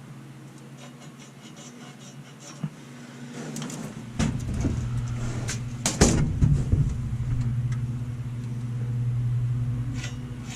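Steady low motor hum that grows louder about four seconds in, with two sharp knocks, one about four seconds in and a louder one about six seconds in.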